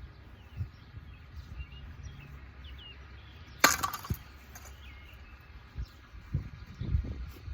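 A rock smashing into an old ceiling fan: one sharp crash about three and a half seconds in, then a smaller knock just after.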